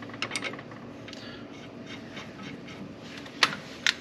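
Light clicks and clatter of metal parts handled by hand as a wheel-stud installer sleeve and nut are set onto a new stud in the hub, over a steady low hum. Two sharper clicks come near the end.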